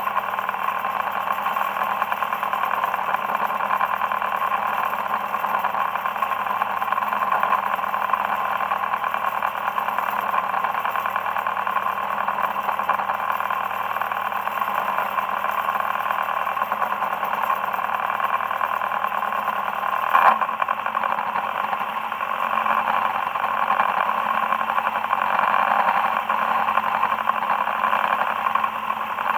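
Boat engine running steadily under way while trolling, mixed with the rush of the wake. A single knock about two-thirds of the way through.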